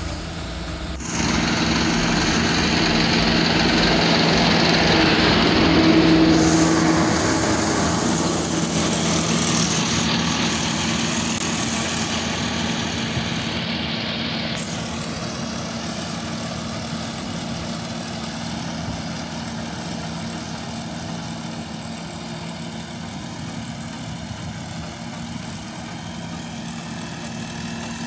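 Engine of a rice combine harvester running steadily. It gets louder about a second in, then slowly grows fainter.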